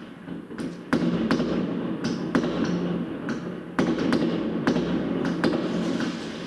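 Fireworks going off outside: a rapid series of sharp bangs and crackles over a low rumble, with heavier volleys starting about a second in and again near four seconds.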